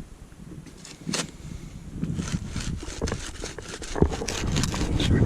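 Soil and turf being scraped and dug out of a deep hole in pasture, with repeated short crackling, scraping strokes over a low rumble and one sharp click about four seconds in.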